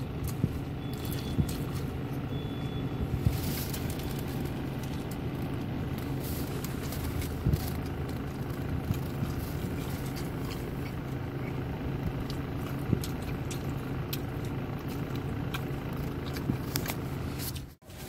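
Steady hum of a car's engine idling, heard from inside the cabin, with scattered small clicks and taps. It drops away just before the end.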